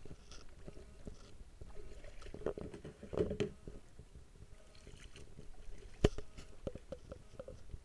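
Scattered small knocks and rustles of handling, with one sharp knock about six seconds in and a few short squeaks after it.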